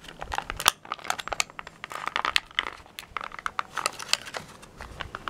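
Plastic blister packaging crinkling and crackling in a flurry of sharp clicks as hands bend and pry at it to free a small toy horse from its card-backed pack.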